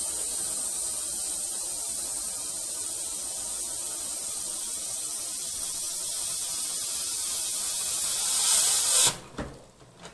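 Steam hissing steadily out of a stovetop pressure cooker's release valve as the pressure is let off by hand. The hiss grows a little louder, then cuts off suddenly about nine seconds in, once the pressure is gone. A couple of short metal clicks from the lid follow near the end.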